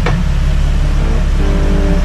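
Low, steady running of a Jeep Wrangler TJ's 4.7 stroker straight-six engine, with background music coming in about a second in.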